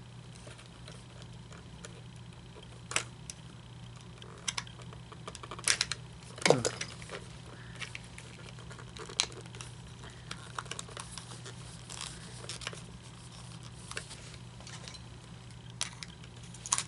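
Scattered clicks, taps and light rattles of small plastic parts being handled while an animatronic figure's hip mechanism is taken apart, with one short downward-sliding squeak about six and a half seconds in, over a steady low hum.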